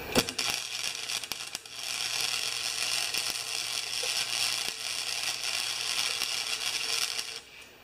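MIG (wire-feed) welding arc crackling and sputtering as it lays a weld on the cracked snowblower transmission housing: a short, broken start, then a steady run of about five and a half seconds that cuts off suddenly near the end.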